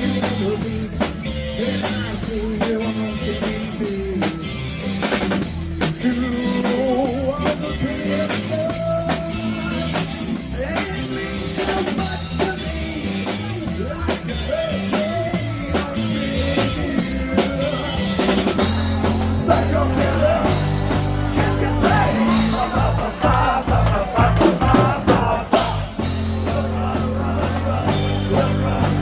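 Live rock band playing, with a full drum kit driving it alongside bass and guitar in an instrumental stretch. About two-thirds of the way through, the band hits a run of stop-start accents with short gaps between them.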